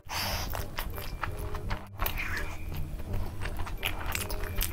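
Close-miked eating sounds: biting into and chewing spicy fried chicken lollipops, with many small sharp mouth clicks.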